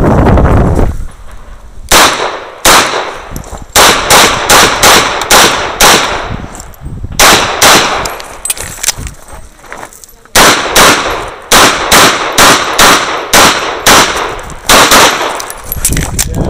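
Rapid pistol fire from a CZ 75 SP-01 AccuShadow: dozens of sharp shots, often in quick pairs, several a second, in strings broken by short pauses, the longest about nine seconds in.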